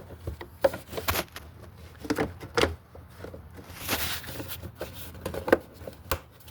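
Plastic engine-bay trim cover being set back down and pressed into its clips: a series of sharp clicks and knocks, with a short scraping rustle about four seconds in.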